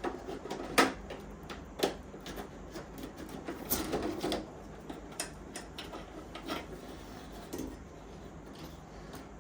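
Hands working fan parts and a fan cable into a server chassis: scattered clicks and knocks of plastic and metal. The sharpest comes about a second in, another about two seconds in, and a busy run of taps and rubbing follows around four seconds.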